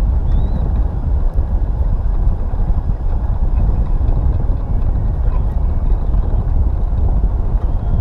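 Wind buffeting the camera's microphone, a loud steady low rumble, with a faint short high bird call about half a second in.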